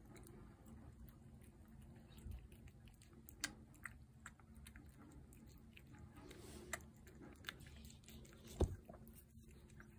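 Feral tabby cat eating, faint chewing and mouth sounds with scattered small clicks. One sharper knock comes near the end.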